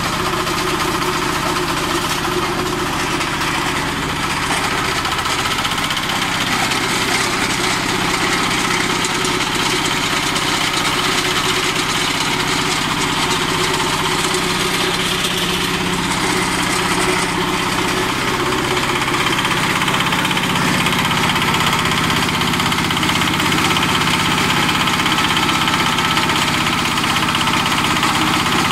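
Small engine running steadily, belt-driving a mini stone crusher, with a constant rattling and grinding of stones being fed in and crushed.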